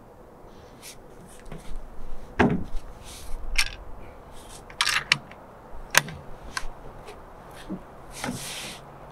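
Handling noises: a dull thump about two and a half seconds in as the binoculars are set down on the cardboard-covered board, then scattered clicks, knocks and rustling as the shooter settles in behind the bolt-action rifle. No shot is fired.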